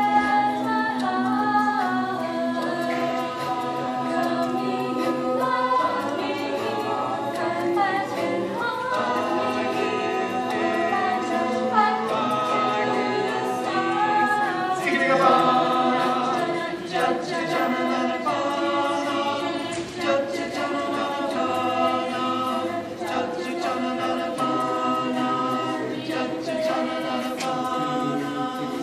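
Mixed-voice a cappella group singing in harmony, with no instruments. A low note is held underneath for the first six seconds or so before the lower parts start moving.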